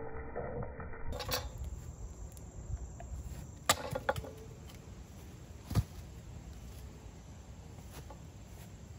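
A few sharp knocks of tulip poplar wood against a wooden plank bench, four in all, the loudest a little under four seconds in and just under six seconds in.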